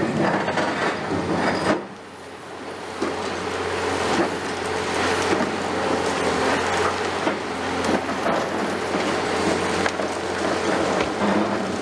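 CAT 336E excavator's diesel engine running steadily under load while its demolition attachment crushes concrete, with dense crackling and debris rattling down. It goes quieter for about a second around two seconds in, then picks up again.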